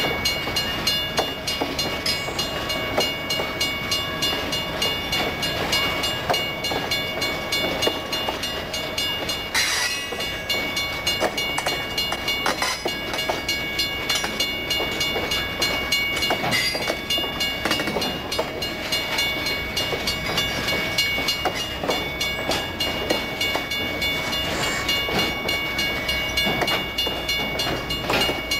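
Freight train of boxcars rolling past, wheels clicking over the rail joints, with a steady high ringing over it.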